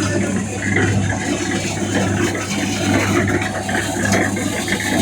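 A machine running: a steady low hum with irregular rattling clatter over it.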